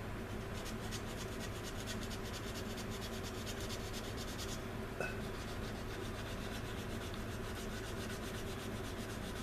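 Sanding stick rubbed in quick back-and-forth strokes over a glued seam on a styrene plastic model kit part. There is a brief pause and a light click about five seconds in.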